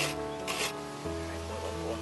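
Coconut flesh being grated by hand: two rasping strokes, about half a second apart, at the start, then they stop. Background music with steady held notes plays underneath throughout.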